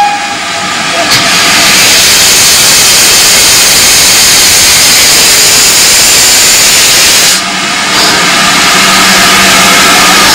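Loud, steady hiss of steam escaping from a steam locomotive. It breaks off briefly about seven seconds in, then resumes.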